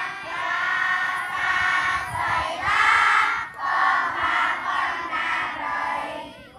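A large crowd of voices chanting together in unison, in repeated shouted phrases of about a second each.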